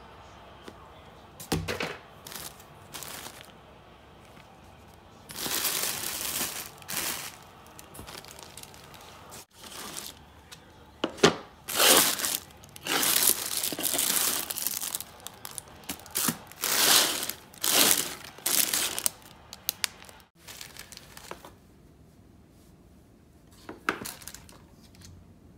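Shredded paper packing filler and a plastic liner rustling and crinkling in irregular bursts as hands dig through a cardboard box.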